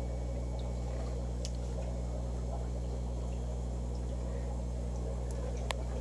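Aquarium pumps running with a steady low hum, and one sharp click near the end.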